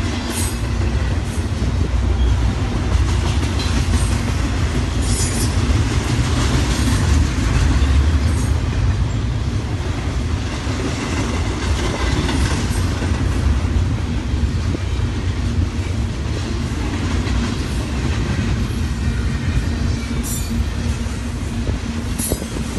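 A double-stack container freight train rolling past at close range: a steady, heavy rumble of steel wheels on rail, with a few sharp clicks as wheels cross rail joints.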